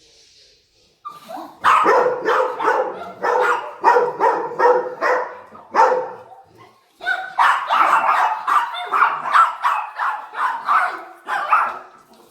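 Several chihuahuas barking and yapping rapidly and over one another in excited greeting as their owner arrives home, in two long bouts with a short pause about halfway through.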